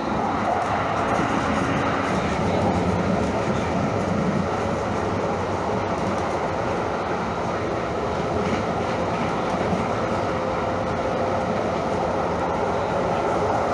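Calgary CTrain light rail car in motion, its wheels on the rails and its traction motors making a steady running noise with a faint underlying hum.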